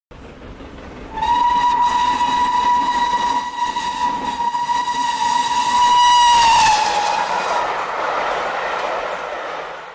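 A train whistle, most likely a steam locomotive's, sounding one long steady note for about five and a half seconds that dips in pitch as it cuts off, over a low rumble. A hiss follows and fades away.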